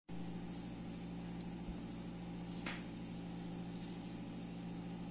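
Steady low electrical or appliance hum with a faint hiss, and one faint tap about two and a half seconds in.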